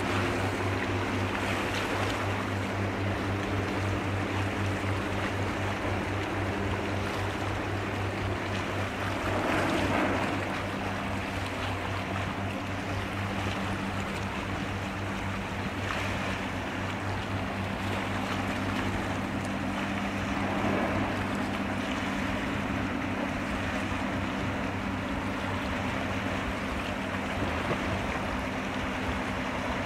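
A large passing ship's machinery droning as a steady low hum with several higher tones, over a steady rush of water and wind. The water noise swells briefly about ten seconds in and again near twenty.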